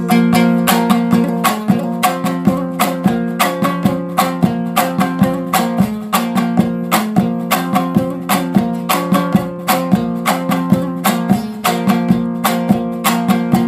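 Instrumental break of a Hazaragi dambura song: a dambura, the Afghan long-necked two-string lute, strummed in a fast, even rhythm over a steady low note.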